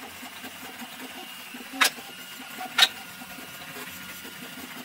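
Two short, sharp clicks about a second apart, from a soldering iron and hands working on a 3D-printed plastic model fuselage, over a steady low hum.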